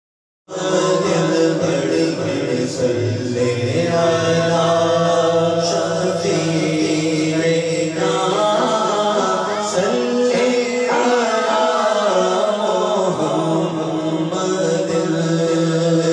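Devotional naat singing: men's voices in a layered vocal chorus over a steady held hum, with no words picked out. It starts suddenly about half a second in.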